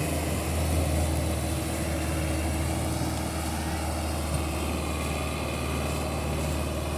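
Belarus tractor's diesel engine running steadily under load as it pulls a trolley heavily loaded with sugarcane.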